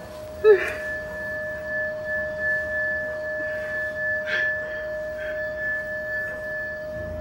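A short loud gasp about half a second in, then a steady eerie ringing drone on two held pitches from the horror score, with a few faint breaths over it.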